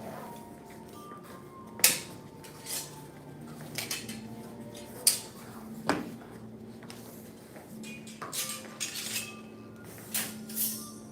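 Scattered sharp metal clinks and clacks, the loudest about two seconds in, with more near five and six seconds and a cluster later on, over a faint steady hum.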